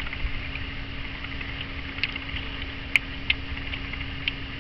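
A few small, sharp plastic clicks and knocks as a wiring harness connector is fitted back onto a reverse light switch. The loudest click comes about three seconds in. Underneath runs a steady low hum and rumble.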